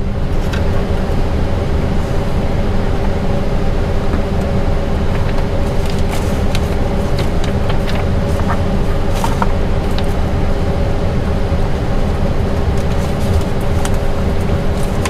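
Steady flight-deck noise of an Airbus A320 on the ground with its engines at idle: a constant low rumble under a steady hum, with a few faint clicks through the middle.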